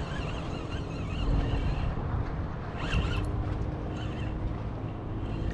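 Penn spinning reel being cranked, its gears and line winding in a hooked fish, under steady wind buffeting the microphone. There is a short sharp tick about three seconds in.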